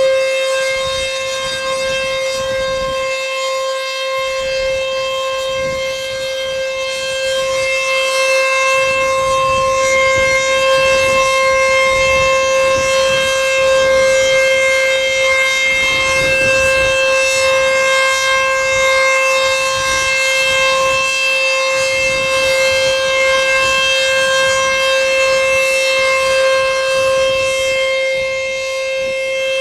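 ACA Screamer S-2 outdoor warning siren sounding at full speed during a test: one steady tone held without rising or falling, its loudness swelling and dipping slightly.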